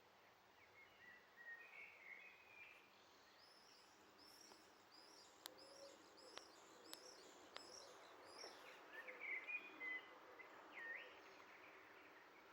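Faint birdsong: several birds chirping, with a run of short, repeated high notes in the middle and a few sharp clicks among them.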